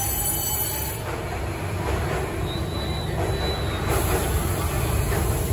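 Steady rumble and wheel noise of a Beijing Subway Line 1 train in the station, heard from inside a stopped car with its doors open.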